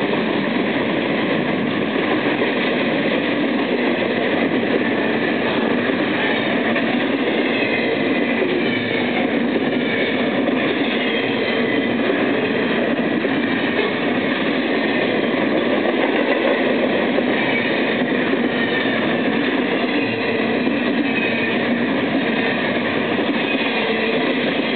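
BNSF intermodal freight train's double-stack container cars and trailer flatcars rolling past close by: a steady noise of steel wheels running on the rails.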